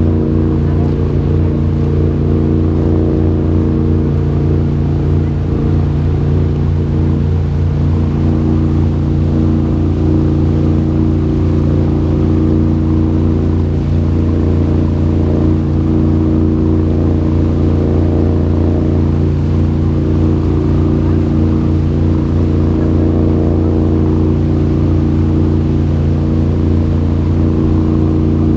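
Tour boat's engine running at a steady speed: a constant low drone of evenly spaced tones that holds the same pitch and loudness throughout.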